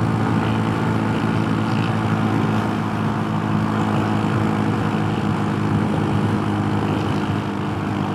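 Honda Super Cub C125's single-cylinder engine running steadily at cruising speed, with a steady rush of wind over it.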